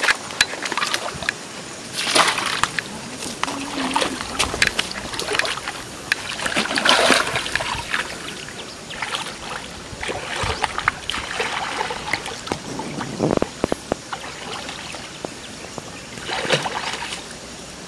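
Water sloshing and splashing around a person wading waist-deep through a pond, coming in irregular surges every few seconds as he pushes forward.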